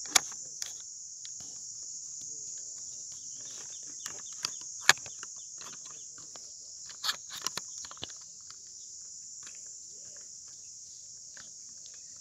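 Steady high-pitched buzz of a chorus of insects, with a few sharp clicks scattered through it, the loudest just after the start and about five seconds in.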